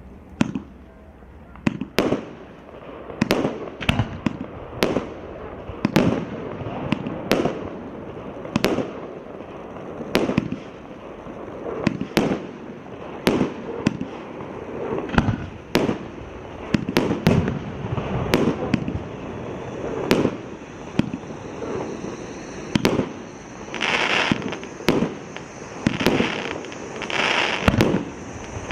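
A 35-shot firework battery with mixed 1-, 1.2- and 1.5-inch tubes firing shot after shot, about one to two sharp reports a second. Near the end come several longer, brighter bursts.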